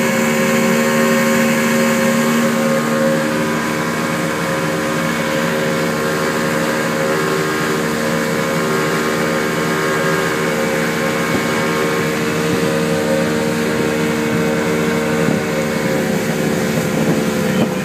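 Motorboat engine running steadily as the boat cruises across the water, with the rush of water and wind past the hull.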